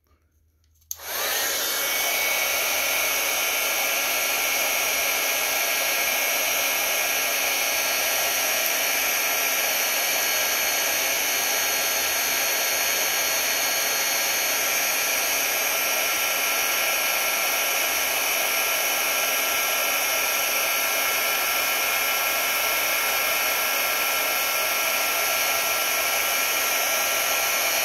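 Electric heat gun switched on about a second in and running steadily: a fan's rush of air with a few steady whining tones, shrinking heat-shrink tubing.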